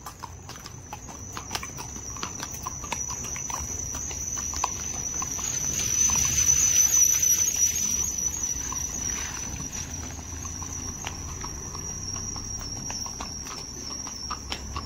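Horse hooves clip-clopping on a road as the horse is ridden, with a steady high-pitched insect drone over it. A rush of noise swells and fades around the middle.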